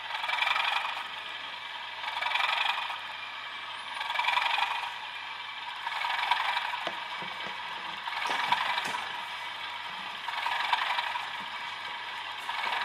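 Sound-fitted Bachmann OO-gauge Class 37 model locomotive idling: its South West Digital sound decoder plays a recorded English Electric diesel idle through the model's small speaker, thin and tinny, swelling and fading about every two seconds. A few light clicks come in the middle.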